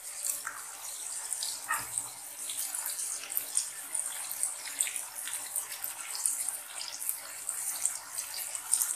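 Onion and tomato masala with whole spices and green chillies sizzling in hot oil in a wok: a steady frying hiss with many small crackles and pops.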